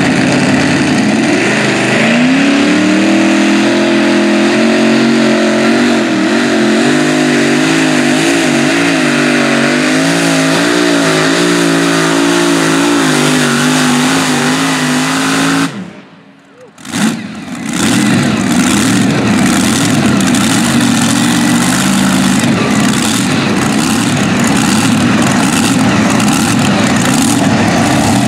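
Multi-engine modified pulling tractor's supercharged engines at full throttle under load. The pitch climbs about two seconds in, then holds with a wavering. The sound drops out briefly about halfway and comes back rougher.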